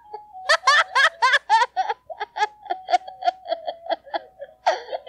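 A child giggling in a quick run of short bursts, loudest in the first two seconds and then lighter, over a thin steady electronic tone, like a toy keyboard note, that steps down in pitch.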